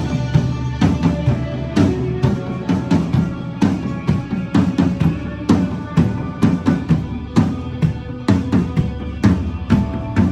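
A drum kit played along to a recorded rock song: bass drum, snare and cymbal hits in a steady beat, with strong accents about once a second over the song's guitars and voice.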